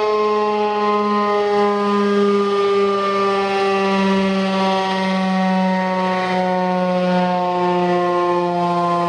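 Darley STH-10 outdoor warning siren sounding during a siren test: one loud, steady tone whose pitch slides slowly downward.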